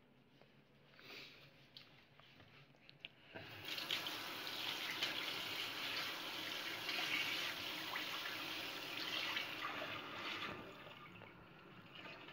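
Kitchen tap water running into a sink, likely rinsing the sea bass being cleaned. The water starts about three seconds in after a few faint clicks and knocks, runs steadily for about seven seconds, then eases off.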